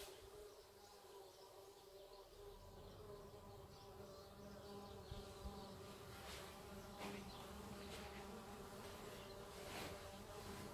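Near silence with a faint, steady buzzing hum. A low rumble joins it about two seconds in, and there are a few faint taps.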